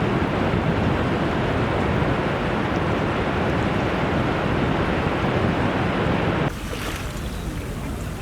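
Ocean surf: a steady rush of waves breaking, cutting off abruptly about six and a half seconds in to a quieter, hissier recording of the sea.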